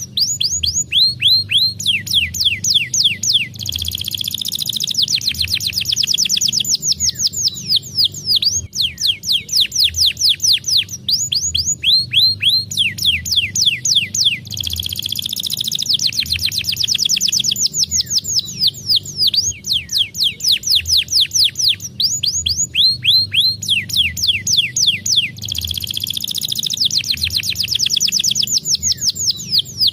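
Domestic canary singing a fast, high-pitched song of rapidly repeated downward-sweeping notes, broken by buzzy rolls. The same song sequence comes round again roughly every eleven seconds.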